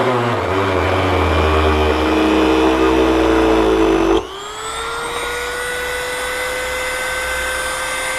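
Electric drill boring a hole through motorcycle plastic for the mirror wires: the motor slows and drops in pitch under load with a low rumble, then about four seconds in the load suddenly lets go and the motor spins back up to a steady, higher whine.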